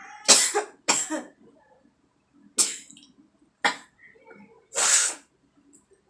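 A person sneezing five times in quick succession, set off by tickling inside a nostril. Each sneeze is a sharp, hissy burst, and the last one is the longest.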